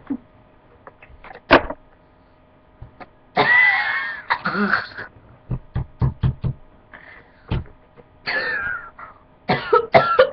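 A person coughing repeatedly, in short sharp hacks and longer voiced coughing spells, with the longest and loudest about three and a half seconds in: throat irritation from breathing in aerosol body spray.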